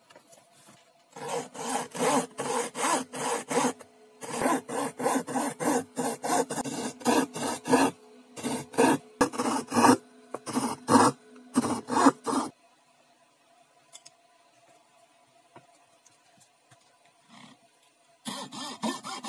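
Hand coping saw cutting thin plywood: quick rasping strokes, about three a second, in runs with short pauses. The sawing stops about twelve seconds in, leaving only a faint steady hum, and starts again near the end.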